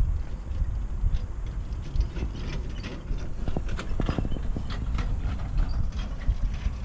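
Welsh cob's hooves clip-clopping, mixed with many small clicks and rattles from the harness and carriage, over a steady low rumble.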